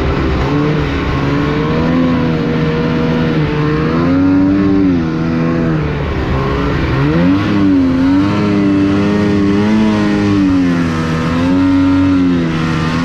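Snowmobile engine running hard under throttle, its pitch rising and falling again and again as the throttle is worked, with a deep dip and a quick climb about seven seconds in.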